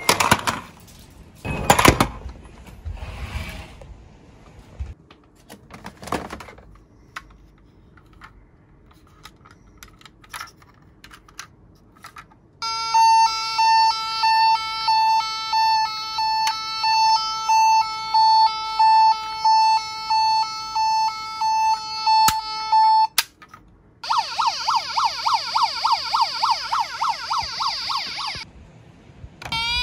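Electronic sirens of battery-powered toy emergency vehicles. First a few knocks and rattles of plastic toy cars. Then a repeating two-tone siren for about ten seconds, a fast warbling siren, and near the end a rising wail.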